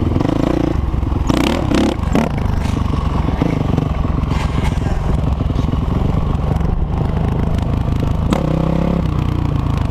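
Honda CRF450 dirt bike's single-cylinder four-stroke engine running under throttle while riding, the revs rising and falling, with a few sharp clatters about a second and a half in.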